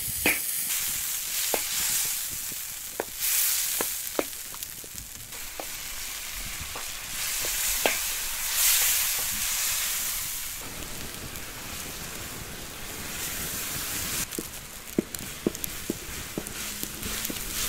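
Chopped tomatoes frying in a black steel pan, sizzling with a hiss that swells and fades as a wooden spoon stirs them. Sharp clicks sound now and then.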